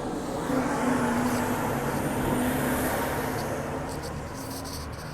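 A motor vehicle driving past, its engine and tyre noise swelling over the first second and fading away toward the end.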